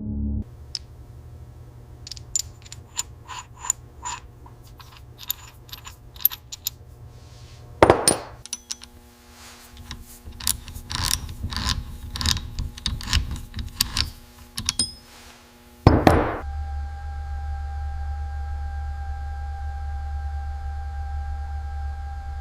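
Small metal parts and hand tools clinking and tapping, with sharp ringing ticks, then denser clicking, and two louder clanks about eight and sixteen seconds in. After the second clank a steady low hum with a held tone takes over.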